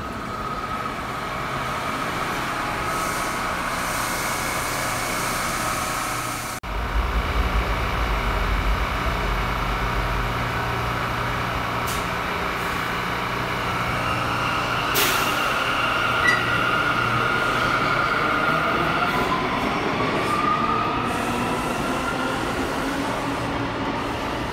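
New York City Subway R179 train pulling out of the station: electric traction motors whining, with the whine rising in pitch as it speeds up, over the rumble of the wheels. There is a heavy low rumble a few seconds in and single clanks around the middle.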